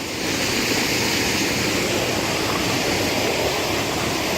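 Waterfall pouring into a small rock pool, a steady, even rush of falling water.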